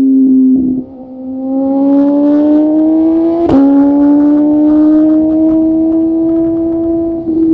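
Motorcycle engine heard on board, its note climbing steadily under acceleration, with an upshift halfway through: a sharp click and a small drop in pitch before it climbs again.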